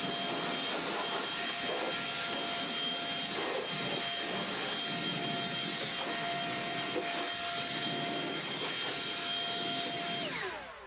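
Sawmill running steadily with a constant whine over a hissing noise, then winding down near the end as its pitch falls away.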